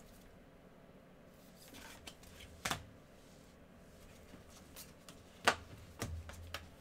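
Glossy Panini Prizm trading cards being flipped through by gloved hands: soft sliding and rubbing with a few sharp card snaps, the loudest about two and a half and five and a half seconds in.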